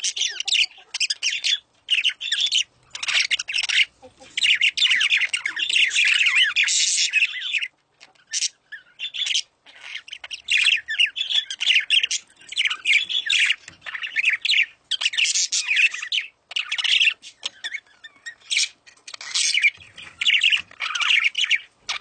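Many caged birds chirping and squawking together, a dense, high, overlapping chatter that comes in clustered bursts with a few brief lulls.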